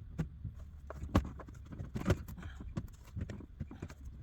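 Irregular knocks and clicks from jacking a car up and setting jack stands under it, with a couple of sharper strikes about a second apart among lighter clicks.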